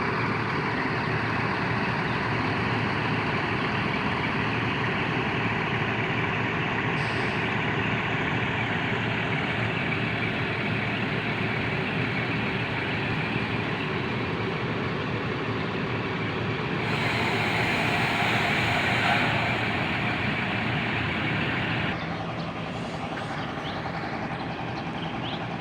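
Large bus's diesel engine running steadily, with a hiss over it for several seconds in the second half that stops suddenly.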